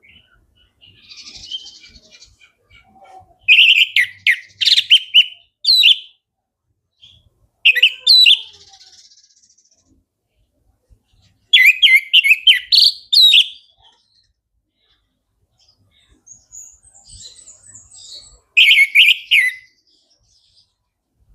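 Orange-headed thrush (anis merah) in full song: four loud phrases of rapid, varied whistled notes a few seconds apart, with quieter twittering between them.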